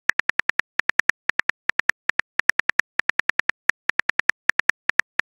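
Phone keyboard click sound, one short sharp click per typed letter, about ten a second in quick runs with brief pauses between words.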